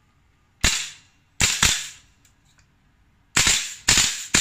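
VFC HK416 airsoft rifle firing: a single shot about half a second in, then two quick shots about a second later, then rapid bursts of several shots each near the end.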